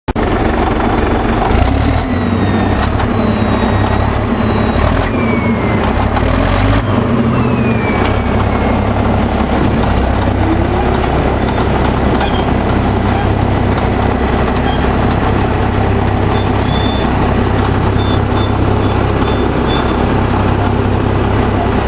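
Caterpillar D9G bulldozer's diesel engine running loud and steady, its note shifting during the first several seconds with a few short falling whines, then settling.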